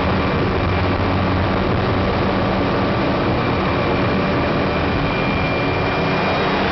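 Helicopter engine and rotor running steadily: a dense, even drone with a thin, steady high whine above it.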